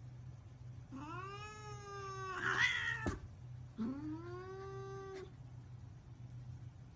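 Domestic cat giving two long, drawn-out meows, the first about a second in and the second just before halfway, each rising at the start and then held. A short knock comes between them.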